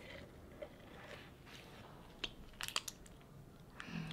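Sticky slime being poured and squeezed by hand, giving faint wet crackles and small clicking pops scattered through, thickest a little past halfway.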